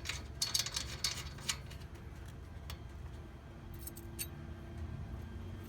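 Light metallic clicks and ticks of a cap nut being fitted by hand onto a wheel axle over its washers: a cluster in the first second and a few more around the middle.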